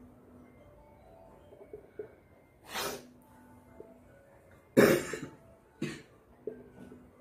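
A person coughing: a breathy burst near three seconds, then a louder cough a little before five seconds and a short one about a second later. Faint squeaks of a marker writing on a whiteboard in between.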